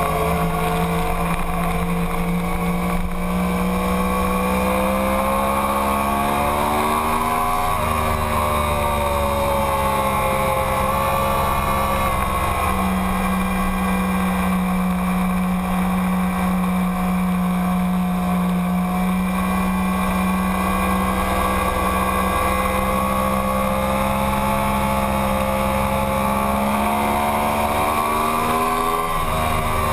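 2009 Yamaha YZF-R1's crossplane inline-four engine running hard at high revs, heard from on board. Its pitch climbs and then drops about eight seconds in and again near the end, and holds fairly steady between.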